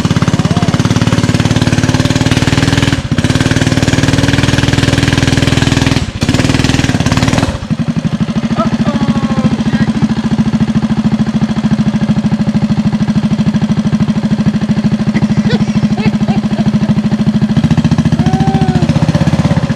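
Mini bike engine running loud and hard with a rapid, even firing pulse, dipping briefly twice, then about seven seconds in settling to a steadier, duller run, while the bike sits bogged in a muddy puddle and puffs smoke.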